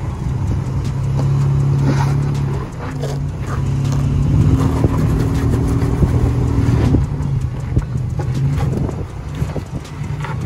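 Lifted Toyota 4Runner's engine running under load while crawling up a steep rock climb. The revs rise and fall, with scattered knocks from the rock.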